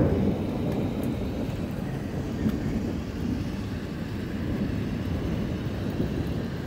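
Low rolling rumble of thunder from a lightning storm, loudest at the start and then easing to a steady grumble.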